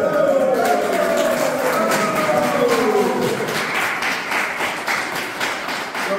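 A small group clapping for a prize winner, with a chanting voice held over it that slides down in pitch in the first few seconds.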